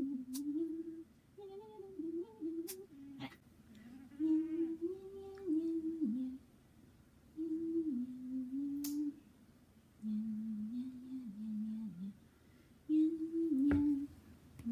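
A woman humming a slow tune in short phrases with pauses between them. Several sharp clicks of cat claw clippers cut in as the claws are trimmed.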